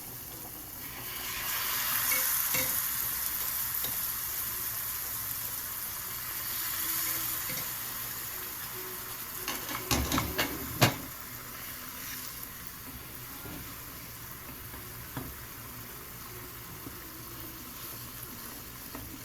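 Chicken broth poured into a hot pot of fried onion, tomato and spices, setting off a loud sizzle about a second in that then settles to a steadier sizzle. A few clanks of a utensil against the pot about halfway.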